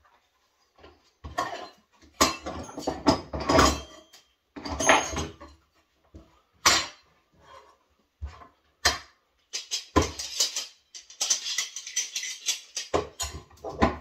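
Tools and objects being handled on a shelf: irregular clattering and scraping, with a quick run of rubbing strokes near the end.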